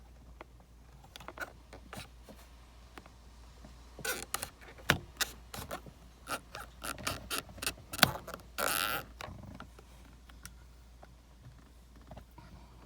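A screwdriver prying at the airbag release points of a BMW F30 steering wheel: scattered clicks and knocks of metal and plastic, busiest in the middle, with a sharp click about five seconds in and another about eight seconds in, followed by a short scrape.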